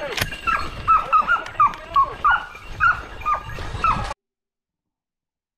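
Boar-hunting dog yelping over and over in short cries that drop in pitch, about two or three a second. The sound cuts off suddenly about four seconds in.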